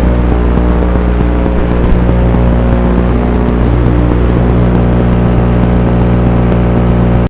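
Blade Torrent FPV quadcopter's electric motors running with a loud, steady buzz, their pitch holding fairly level, cutting off abruptly at the end.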